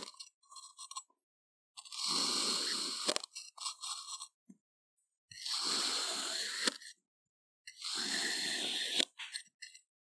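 Knife slicing down through a dome of packed kinetic sand three times: each cut is a gritty crunch about a second and a half long that ends in a sharp click, followed by small crumbling crackles.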